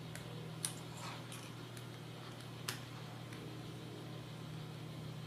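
Small Phillips screwdriver tightening screws into a plastic servo mount: a few faint scrapes and two sharp clicks, one a little after the start and the other about two seconds later, over a steady low hum.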